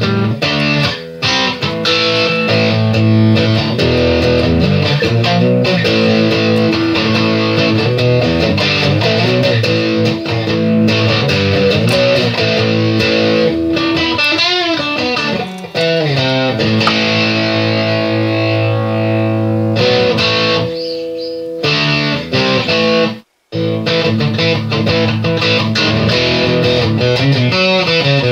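Background guitar music, with a short break near the end.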